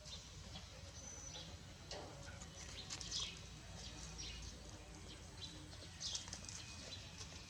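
Faint, brief high-pitched animal chirps or squeaks, a few seconds apart, over a low background hum.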